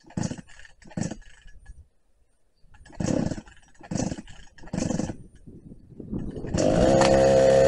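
Vintage Husqvarna two-stroke chainsaw being pull-started: about five short pulls on the starter cord, each with a brief sputter, then the engine catches near the end and runs steadily.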